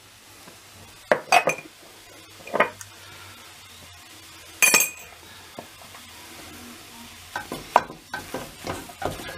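Wooden spoon stirring and scraping thick mashed potato in a stainless steel pot: a few separate knocks, a sharp ringing clink about halfway through, then quick, busy stirring in the last two seconds.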